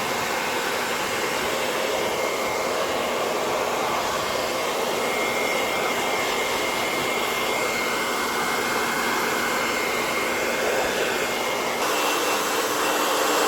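Remington Keratin Protect ionic hair dryer running steadily, a loud even rush of air with a faint whine. About twelve seconds in, its tone changes and it gets a little louder.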